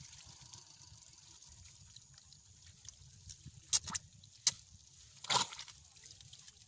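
Four short wet drips or squelches in shallow mud: three sharp ones close together past the middle and a slightly longer one near the end. Faint low background rumble throughout.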